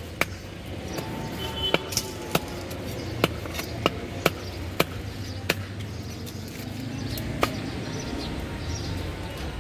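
A cleaver knocking on a wooden chopping block while a tilapia is cut: about ten sharp, irregular knocks over steady low background noise.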